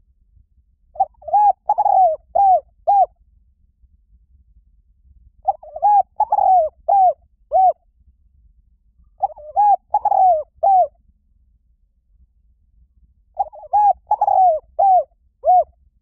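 Spotted dove cooing: four phrases of about five quick coos each, the middle coo the longest, repeated roughly every four seconds.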